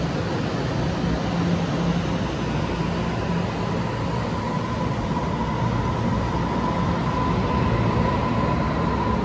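Taiwan Railways EMU500 electric multiple unit pulling out along the platform, its cars rolling past with a steady rumble of wheels on rail. A steady whining tone comes in about halfway through and grows stronger as the train gathers speed.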